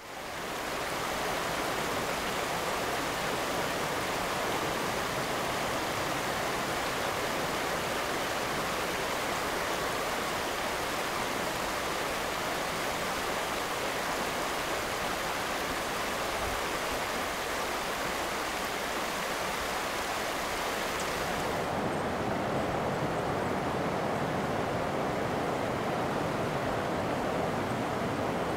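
Shallow creek running over stones, a steady rushing hiss that fades in at the start. About 21 seconds in it changes abruptly to a deeper, steady rumble of ocean surf breaking on the beach.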